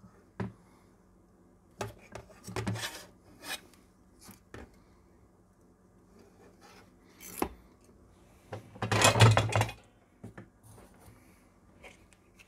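Hands handling a circuit board and its wires on a cutting mat: scattered light clicks and rubs, with one longer scraping rub of about a second just after nine seconds in.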